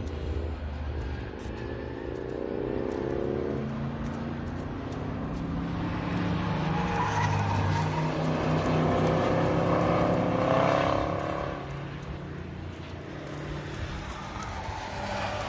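Cars lapping a road course, engines pulling hard with their pitch climbing as they accelerate. The loudest pass, about halfway through, is a Chevrolet Camaro ZL1 1LE with its supercharged 6.2-litre V8, rising in pitch and then fading.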